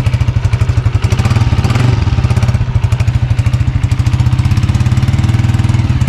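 Honda CG125 Special Edition's single-cylinder four-stroke engine idling with an even, rapid pulse, the engine note rising briefly about one and a half seconds in before settling back to idle.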